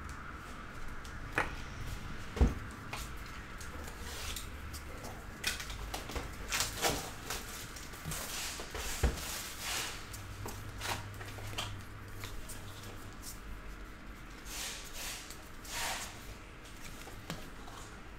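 Baseball trading cards handled by hand: soft sliding swishes as cards are flipped through a stack, with scattered light taps and clicks at irregular moments.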